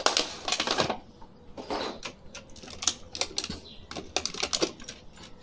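Clear plastic toy packaging and a cardboard box being opened and handled: irregular crinkles, rustles and small clicks, busiest in the first second.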